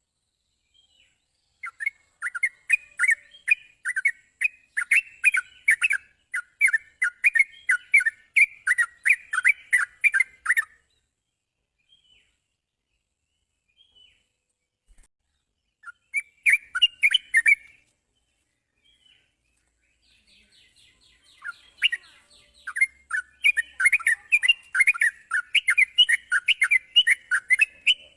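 Yellow-vented bulbul (trucukan) singing: runs of rapid chirping notes in three bouts, the first about two seconds in and lasting some nine seconds, a short one around the middle, and a long one building up near the end.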